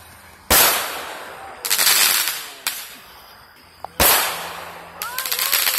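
Consumer aerial fireworks bursting overhead: a loud bang about half a second in, a bang followed by crackling just before two seconds, a sharper pop, another loud bang about four seconds in, and a fast run of crackles near the end, each bang fading away over a second or so.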